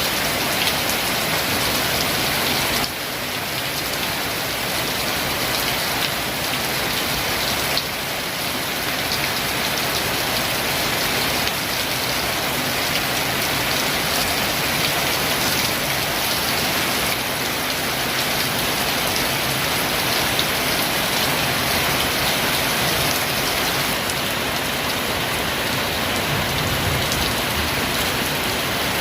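Heavy rain pouring steadily onto surfaces, a dense, even hiss with no break.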